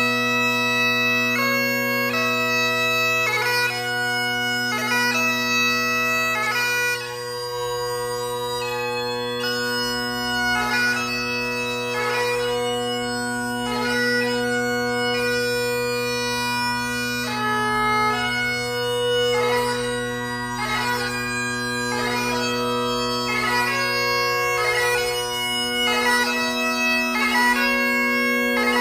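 Great Highland bagpipe played solo: the drones hold a steady low tone while the chanter plays the melody, its held notes broken by quick grace notes.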